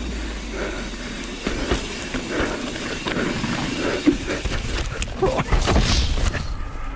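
Mountain bike riding down a rough trail: tyres running over dirt and rock under a steady rush of noise, with frequent irregular knocks and rattles from the bike.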